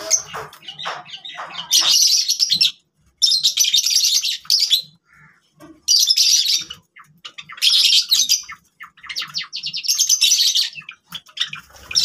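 Java sparrows chirping in quick, high-pitched chattering bursts, about five of them, each around a second long, with a few lower single calls at the start.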